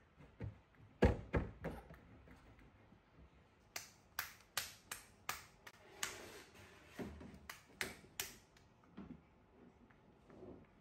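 A baby's palms slapping hard surfaces: a few loud slaps about a second in, then a run of about nine sharp slaps on a wooden floor, roughly two a second, as the baby crawls.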